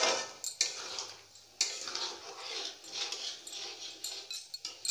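A long metal spatula stirring and scraping through thick dal gravy in a metal kadhai, with a few sharp clinks of metal on the pan.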